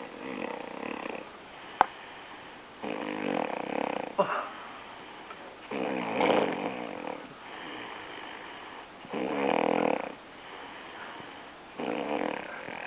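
Rhythmic snoring, one harsh rasping snore about every three seconds. A single sharp click about two seconds in.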